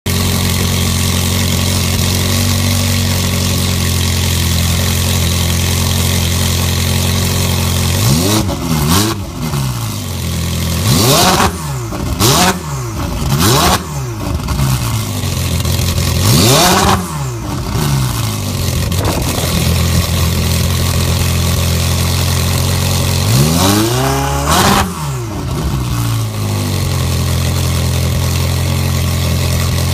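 Ferrari 488 GTB's twin-turbo V8 breathing through a Capristo full exhaust system with 100-cell catalytic converters, stationary. It idles steadily, then about eight seconds in is revved in a string of quick blips whose pitch rises and falls sharply, and settles back to idle near the end.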